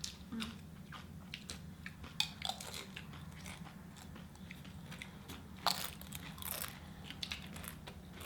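Close-up sounds of a person biting and chewing crunchy food, with irregular crisp crunches, the strongest about two seconds in and again around six seconds in.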